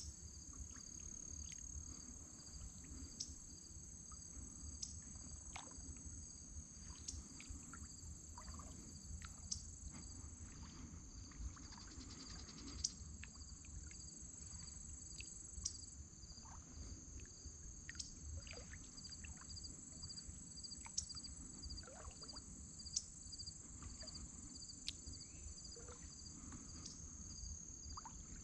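Crickets and other insects trilling steadily, with a faint chirp pulsing about twice a second. Over them come scattered short high chirps and occasional sharp ticks, above a low rumble.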